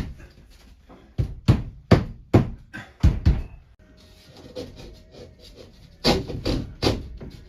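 A series of sharp knocks, about two a second, in two runs: five or six strikes, a pause, then four more.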